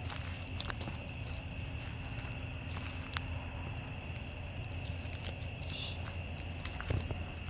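Crickets chirping steadily in a continuous high trill, over a low steady hum and a few faint clicks.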